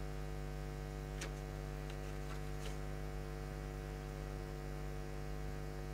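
Steady electrical mains hum in the recording, a low drone with a stack of even overtones, with a couple of faint clicks.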